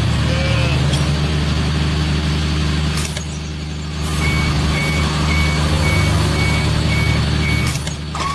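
Truck engine running steadily, with a reversing alarm beeping about twice a second through the second half.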